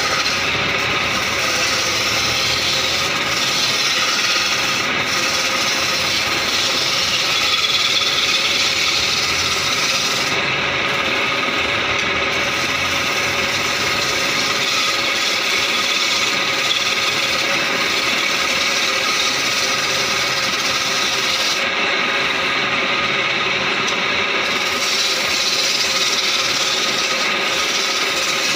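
Wood lathe turning a wooden blank while a flat chisel held on the tool rest scrapes along it: a steady, unbroken rasping scrape of wood being cut, with the lathe running underneath.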